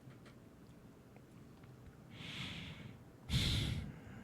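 A man breathing close to the microphone: a soft breath about two seconds in, then a louder one just after three seconds.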